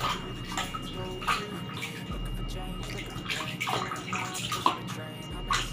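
Water sloshing and splashing irregularly in a plastic bucket as a foot valve strainer on a suction pipe is rinsed clean by hand.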